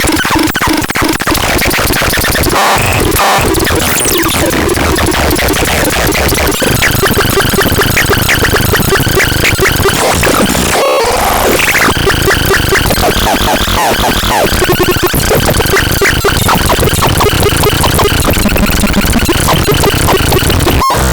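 Loud, harsh electronic synthesizer noise: dense glitchy, stuttering tones and crackle running without a break, with a brief dip about eleven seconds in.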